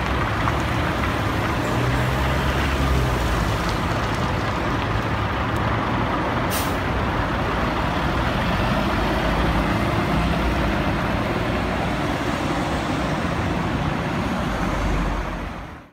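Scania OmniLink city bus's diesel engine running close behind the bus, which then pulls away. A short, sharp hiss of compressed air comes about six and a half seconds in.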